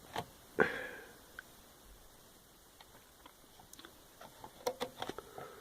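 Plastic clicks and taps from handling and pressing the buttons of a Sears alarm clock, model 7196, while setting the alarm. There are two sharp clicks in the first second, a few faint ticks, then a quick run of clicks near the end.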